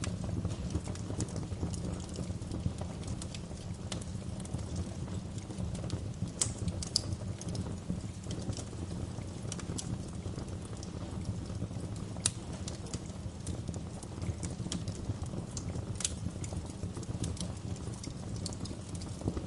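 Wood fire burning in a fireplace: a steady low rumble of flame with irregular sharp crackles and pops, a few louder snaps scattered through.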